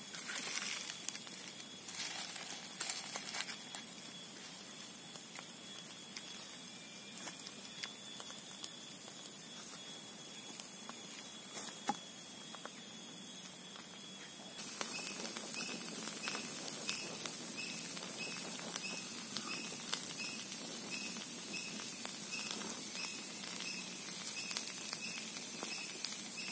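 Small wood campfire crackling with scattered sharp pops, over a steady high insect drone. About halfway through, a repeating high chirp comes in, roughly twice a second.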